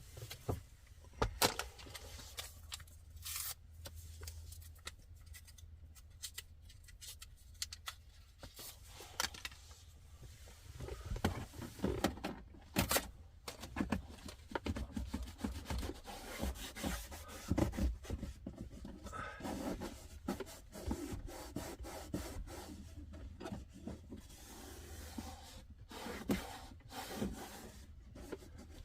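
Intermittent rubbing, scraping and small clicks of hands handling an LED strip and two-sided tape against the car's plastic interior trim, busier in the second half.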